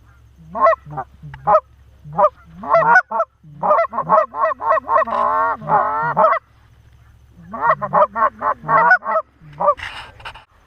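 Canada goose honking, loud and close: quick runs of two-part honks and rapid clucking, with a short break in the middle. A brief rustle comes near the end.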